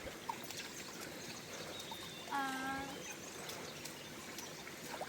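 Small brook trickling steadily. About halfway through comes one short, steady-pitched voice-like hum lasting about half a second.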